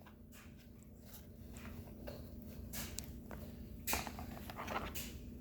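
A package being opened and handled by hand, with scattered faint rustles and clicks that grow busier from about two seconds in.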